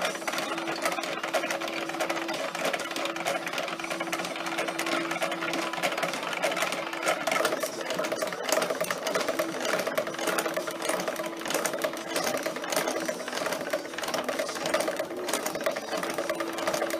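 Drill press table being cranked down and back up on its column rack through a homemade gear-driven lift: a fast, steady clatter of meshing teeth, with a steady tone that cuts in and out. The rebuilt mechanism is running smoothly.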